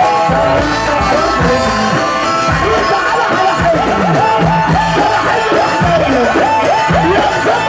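Loud Egyptian sha'bi wedding music: a melody of short, repeated figures sliding between notes over a steady bass line and beat.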